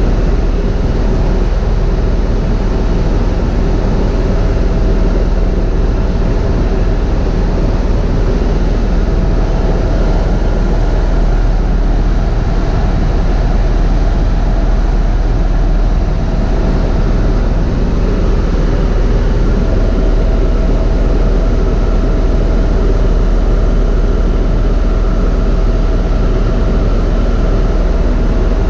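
Helicopter in flight heard from inside its cabin: a loud, steady drone of rotor and turbine with a constant whine, unchanging throughout.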